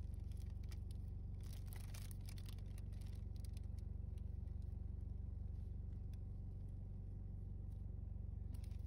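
A steady low mechanical hum with a slight regular pulsing and a few faint light clicks.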